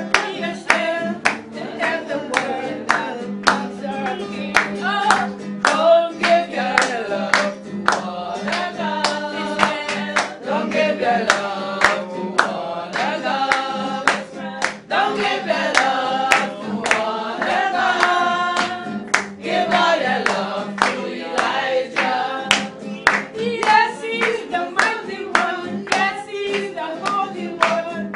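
Worship singing in church, with hand-clapping on the beat at about two claps a second, over a steady low held note.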